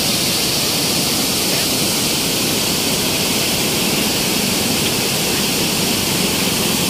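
Brown floodwater pouring over a concrete weir on a river in flood: a steady, loud rush of falling water.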